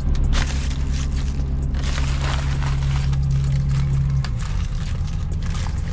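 Semi-truck engine idling in a steady low hum that shifts lower and rougher about four seconds in. Scraping and crinkling handling noises sound over it.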